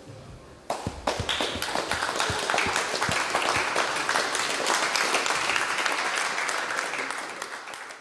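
Crowd applauding as the winner's hand is raised, the clapping breaking out suddenly about a second in and fading away near the end.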